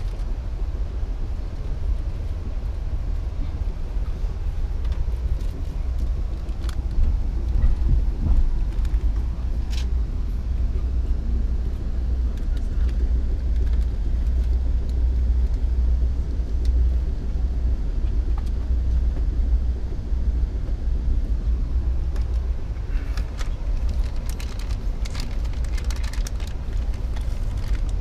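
Steady low rumble of an Amtrak passenger train running, heard from inside the coach car, with a few light clicks and rattles, more of them near the end.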